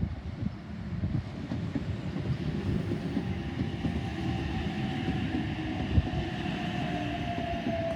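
OSCAR (H-set) electric multiple unit train running into the station with a steady low rumble. From about a third of the way in, a whine slowly falls in pitch as the train slows.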